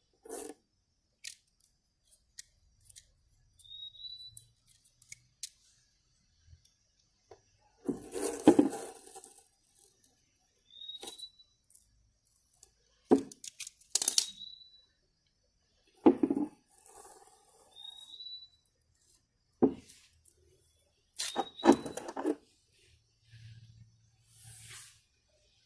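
Masking tape being peeled off a freshly spray-painted tail light lens: intermittent crackling and ripping of the tape, with several louder tears.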